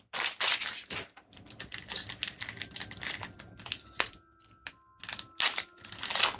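Trading cards and booster-pack wrappers being handled, a quick irregular run of clicks and rustles with short pauses.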